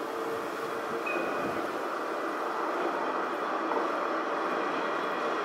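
An Alstom Citadis 305 electric tram approaches on steel rails, a steady running rumble of wheels on rail that grows slowly louder toward the end.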